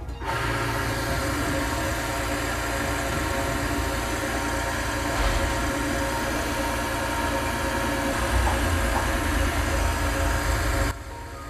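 Bench-top oil lubricity tester running: its electric motor drives a steel ring through a bath of full-synthetic motor oil against a weighted, stationary bearing, a steady mechanical whir and rumble. It starts suddenly and stops abruptly shortly before the end.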